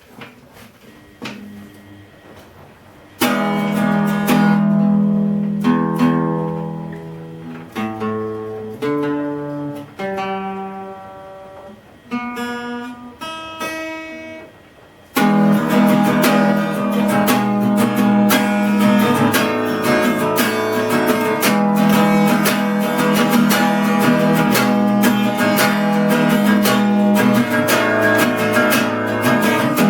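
Acoustic guitar playing. First a few plucked notes, then a chord left ringing and a run of single picked notes; about halfway in, it breaks into steady full strumming.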